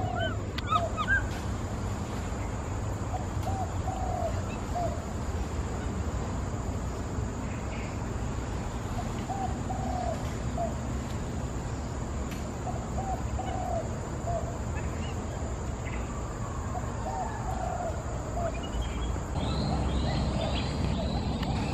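An animal calling: short arched calls in groups of two or three, repeating every few seconds, over a steady low rumble. Near the end a few higher, rising calls join in.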